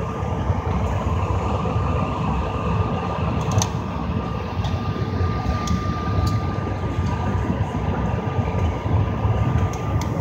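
Steady cabin noise inside a CRJ-700 regional jet on the ground: a low rumble with a thin steady whine over it and a few faint clicks.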